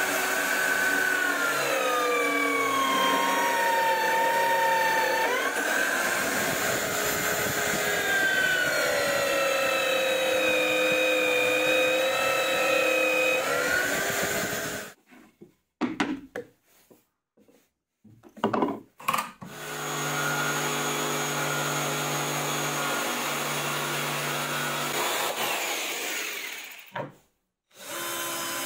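Homemade drill press boring large holes through plywood: the motor runs steadily under load, its whine sagging and rising in pitch as the bit bites and eases off, until it stops about halfway through. After a few brief starts it runs steadily again for about six seconds.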